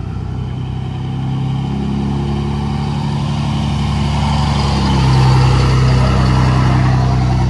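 A motor vehicle's engine running and pulling away: a low steady drone that steps up a little about two seconds in and grows louder from about five seconds.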